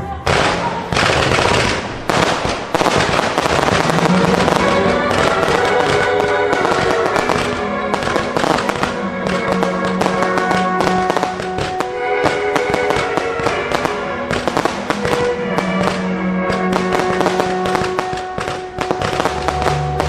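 A pyrotechnic display: fireworks launching and bursting in rapid succession, a dense run of bangs and crackles that breaks out suddenly at the start, with music playing underneath.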